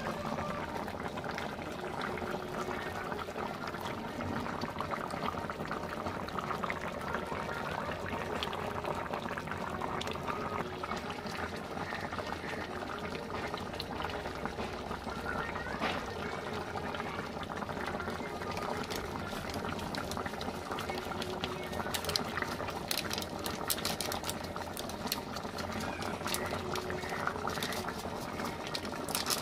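Thick tamarind fish curry boiling hard in an open pan, a steady bubbling with many small pops.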